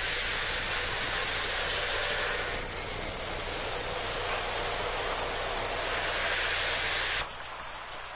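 Electric grinder working stone: a steady high whine over a gritty grinding noise, which cuts off abruptly about seven seconds in.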